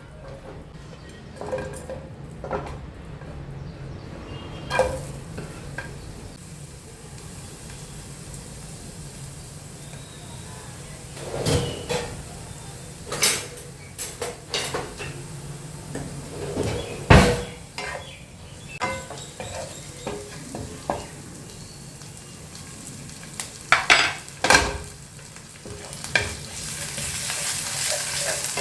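Food frying in a pan, sizzling while a spatula stirs and scrapes it, with scattered knocks of the utensil against the pan. The sizzle grows louder near the end.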